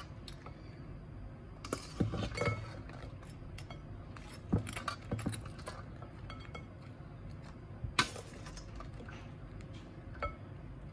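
Metal spoon clinking and tapping against a glass bowl and a steel colander as fries and macaroni are scooped into the bowl: scattered light clinks, the sharpest about eight seconds in.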